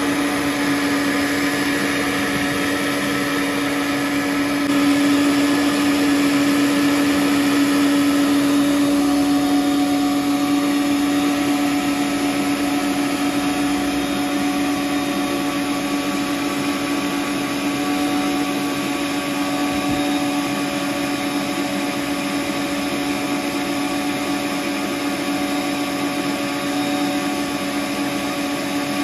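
Stand mixer running steadily, its motor holding one even pitch as the whisk beats eggs and sugar; it gets a little louder about five seconds in.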